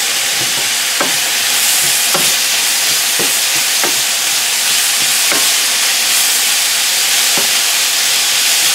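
Carrots, green asparagus and beef sizzling steadily in a hot frying pan, stirred with a wooden spatula that knocks and scrapes against the pan every second or so.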